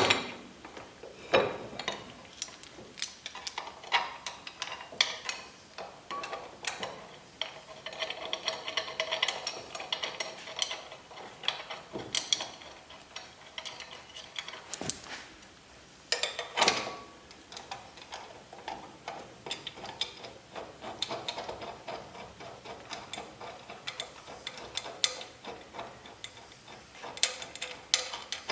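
Irregular metallic clicks, clinks and short ratcheting runs of hand tools and steel parts being fitted at a disc brake caliper mounting.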